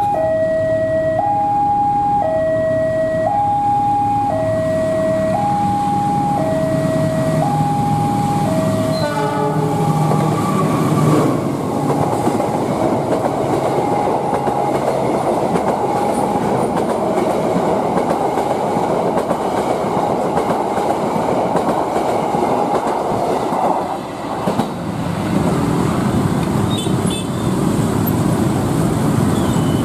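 A two-tone electronic railway warning chime alternates between a low and a high note, about one second each, for the first nine seconds or so. Then a diesel-hauled passenger train passes close by, a loud, steady rush of rail noise, with the warning chime still faintly going underneath.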